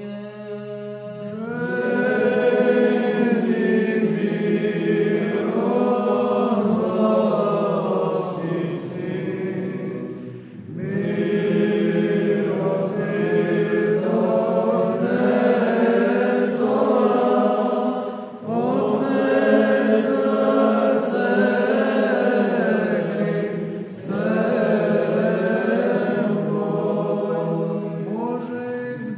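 Male monastic choir singing an Orthodox Paschal hymn verse in Byzantine chant, in Old Slavonic, a cappella. A held low drone opens, and the melody enters over it about a second and a half in. The singing runs in long phrases with short breaks about 10, 18 and 24 seconds in.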